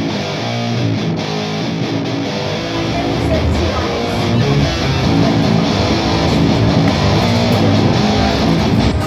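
Guitar-led background music, with the low end filling out about three seconds in.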